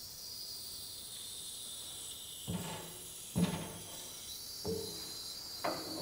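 Pittsburgh hydraulic engine hoist being let down, its release valve open and giving a steady high hiss as the boom lowers a heavy lathe apron. Four short knocks come about two and a half, three and a half, four and a half and five and a half seconds in as the load shifts.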